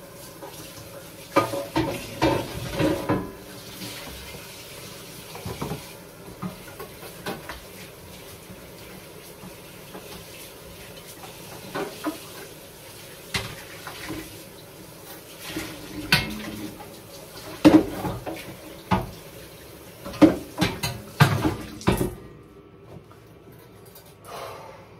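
Kitchen tap running into a sink while a metal oven baking tray is washed, with repeated knocks and clatters of the tray against the sink. The running water cuts off suddenly near the end.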